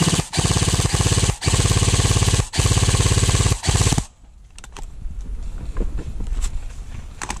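Airsoft gun firing on full auto close by: a loud, rapid rattle in five bursts with short breaks between them, stopping suddenly about four seconds in. Quieter scattered clicks follow.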